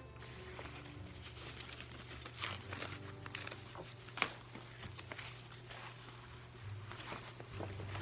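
Tissue-paper wrapping crinkling and rustling in short handfuls as it is pulled off a handbag, with one sharp click about four seconds in.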